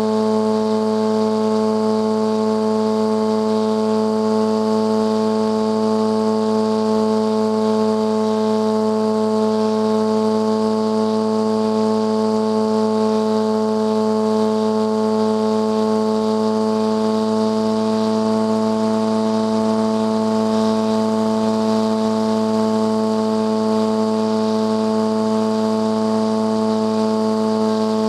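Radio-controlled airplane's motor and propeller heard from a camera riding on the plane: a loud, steady drone with an unchanging pitch, as at constant throttle in cruise.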